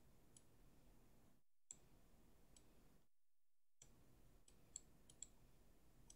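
Near silence broken by several faint, sharp computer mouse clicks, spaced irregularly about once a second.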